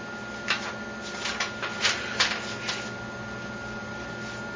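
A handful of irregular light clicks and taps in the first three seconds, over a steady high-pitched whine.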